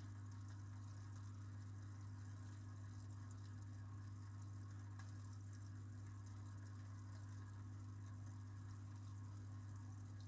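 Steady low hum of an aquarium pump, with a faint trickle of water.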